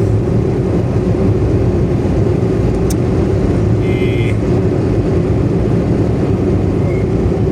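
Steady engine and road drone inside a Daewoo Matiz cabin at cruising speed, with one short click about three seconds in and a brief high chirp about a second later.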